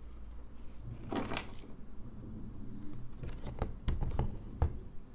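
Pentax 67 camera body handled and turned over on a wooden tabletop: a short scraping rustle about a second in, then a run of small clicks and knocks, the loudest near the end.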